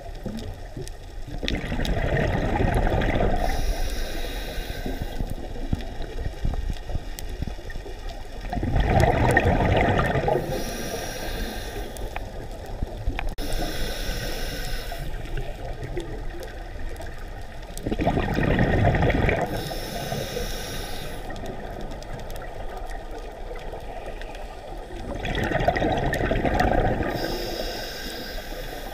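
A scuba diver breathing through a regulator: a hiss from the demand valve on each inhale and a loud gurgling rush of exhaled bubbles, four slow breaths about eight seconds apart, heard from inside the camera's underwater housing.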